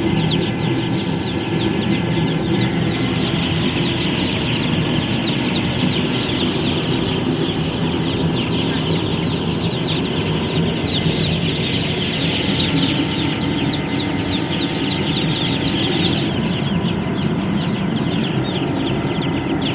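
A large flock of chicks peeping continuously in a dense chorus, over a steady low mechanical hum from the diesel brooder heater running.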